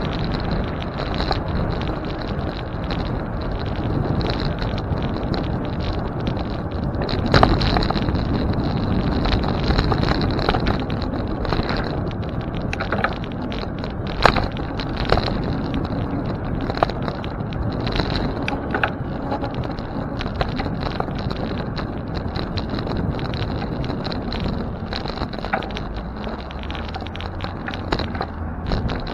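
Riding noise from a bicycle on the move: steady rumble of tyres on the road mixed with wind on the microphone. A few sharp clicks or knocks stand out along the way.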